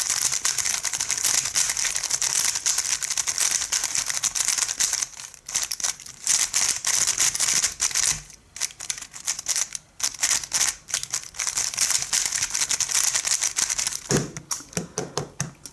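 GAN 356 Air SM magnetic speedcube being turned fast: rapid, dense plastic clicking and clacking of the layers, broken by a few short pauses about five, eight and ten seconds in.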